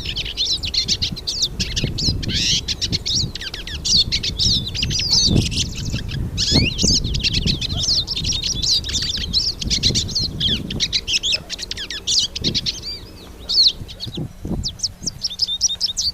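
Several hooded siskins singing together: a dense, continuous stream of fast twittering and warbling notes. Underneath is a low rumble, with a few soft thumps.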